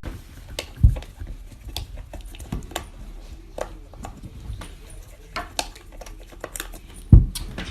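Irregular light clicks and knocks, with a louder thump about a second in and another near the end.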